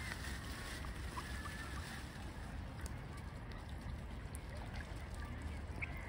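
Steady low outdoor background rumble with a few faint, short high sounds over it.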